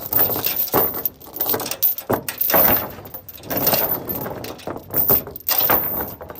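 Tie-down chains and lever binders rattling and clanking as they are handled, in irregular bursts.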